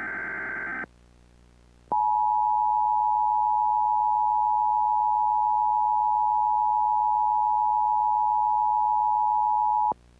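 A buzzy data burst, the tail of an Emergency Alert System header, cuts off about a second in. Then the EAS two-tone attention signal, two steady tones near 853 and 960 Hz sounding together, holds for about eight seconds, announcing an emergency alert.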